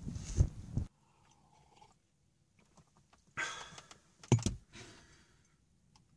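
A sheet of paper rustling and crackling as it is unfolded and handled, in short bursts: one in the first second, then a few more about halfway through, with quiet gaps between.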